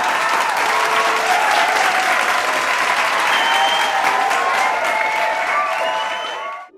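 A crowd applauding, with a few voices among the clapping; it dips and cuts off near the end.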